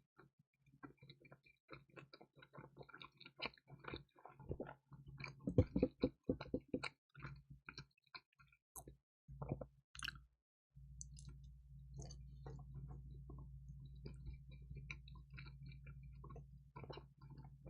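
Close-miked chewing of crispy pizza topped with dried radish greens and bulgogi: dense small crunches and clicks, loudest about five to seven seconds in. From about eleven seconds on, softer chewing sits over a steady low hum.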